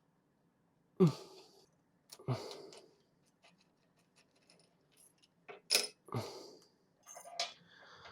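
Metal clamping hardware and tools being handled and set down on a milling machine: about five sharp clanks and knocks with short ringing tails, the loudest about a second in, with a quiet stretch in the middle.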